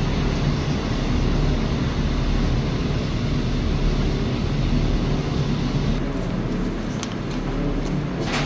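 A steady, low rumbling hum of background noise.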